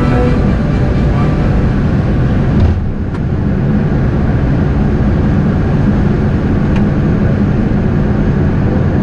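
Background music fades out in the first second or two, then steady in-flight cockpit noise of an Embraer 190 airliner on approach, airflow and engine noise at an even level.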